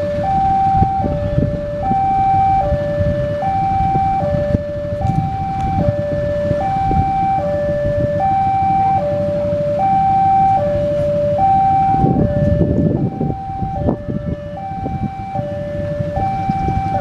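A railway level-crossing warning alarm sounds a steady two-tone hi-lo signal, switching pitch about every 0.8 seconds, which signals that a train is approaching. A continuous low rumble runs underneath and swells briefly about two-thirds of the way through.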